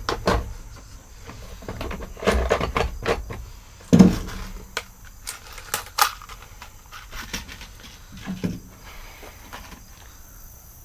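Scattered clicks, clacks and knocks as a hand rivet gun and rivets are handled against a sheet-metal patch panel on a pickup's body. The loudest knock comes about four seconds in.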